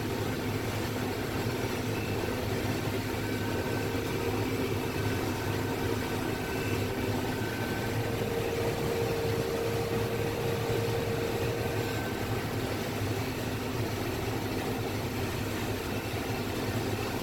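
Combine harvester running steadily while shelling corn, a constant machine drone with a faint whine that grows a little stronger about halfway through. By the operator's account the combine is running well.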